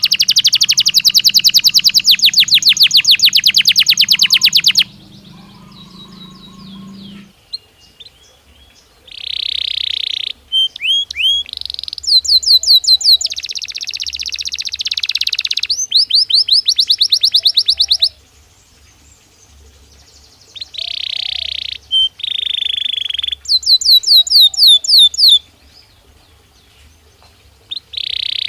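A Belgian canary singing: fast, high trills of rapidly repeated notes and buzzy rolls, in phrases of a few seconds each, separated by short pauses.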